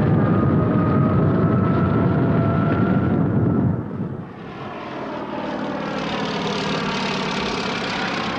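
Propeller aircraft engine noise. A loud, rough drone with a slowly rising whine drops off about four seconds in. It gives way to a biplane's piston engine flying past, its pitch gliding.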